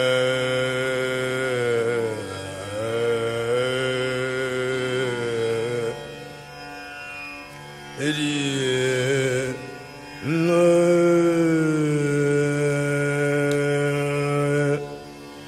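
Male dhrupad voice singing the alap of raga Malkauns: long held notes joined by slow glides. It goes quieter from about six to eight seconds in, and the voice comes back in with upward slides at about eight and ten seconds.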